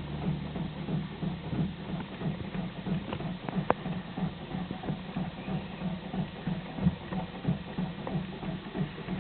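Seat Leon Mk1 1.6 petrol engine being cranked over by the starter motor, a steady rhythmic churning that goes on without the engine catching, with a sharp click a little before four seconds in. This is the car's fault: it cranks but won't start.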